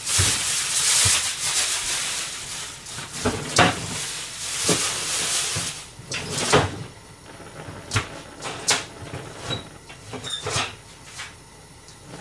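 Kitchen handling noise: rustling near the start and again around five seconds in, and a string of sharp knocks and clacks of cupboard doors and drawers being opened and shut.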